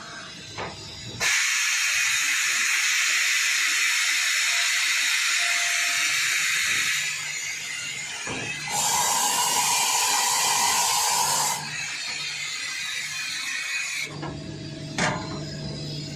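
Mazak Variaxis J600 5-axis machining center hissing in two long bursts as it runs its cycle, the first about six seconds, the second about three seconds and higher. A sharp click comes near the start and another near the end, over a faint steady hum.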